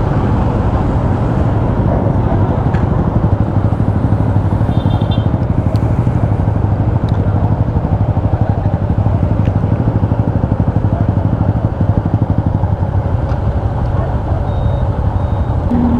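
Motorcycle engine idling steadily with a fast, even low pulse, among other motorcycles. A short high beep sounds once about five seconds in.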